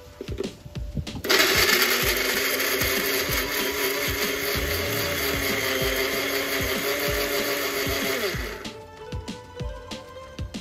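Electric mixer grinder blending chopped tomatoes into a purée: the motor starts about a second in, runs steadily for about seven seconds, then is switched off and winds down. Background music plays throughout.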